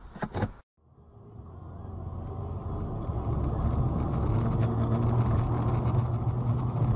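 A car driving, heard from a dashboard camera inside the cabin: a steady low rumble of engine and tyres that grows louder over the first few seconds after a brief break of silence near the start.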